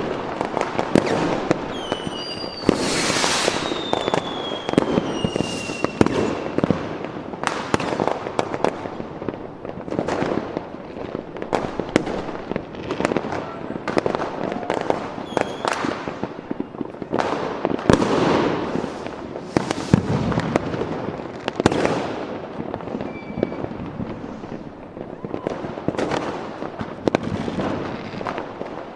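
Fireworks going off: a dense, continuous run of bangs and crackling, with whistling rockets falling in pitch about three seconds in.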